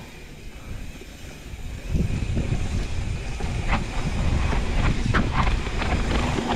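Mountain bike rolling fast down sandy dirt singletrack: a rough rumble of tyres on sand with the bike rattling, louder from about two seconds in. Several sharp clicks and knocks from the bike come through over bumps.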